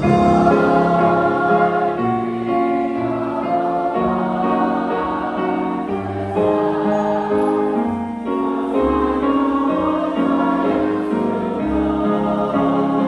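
A choir singing held chords with musical accompaniment.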